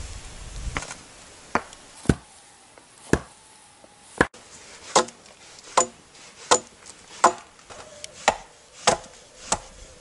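Wood being chopped with a blade: about a dozen sharp, regular blows, a little under a second apart.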